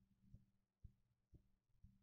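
Faint low thumps at an even beat of about two a second, the drumming or heartbeat-like noise, over a steady low hum.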